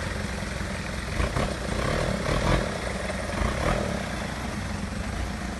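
Off-road vehicle's engine running with a steady low rumble, with a few dull knocks along the way.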